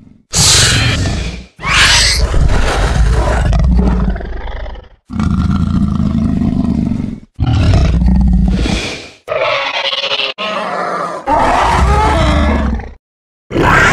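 A run of about seven separate creature roars and growls, the vocal sound effects of reptilian monsters, each lasting one to three seconds with brief silences between them.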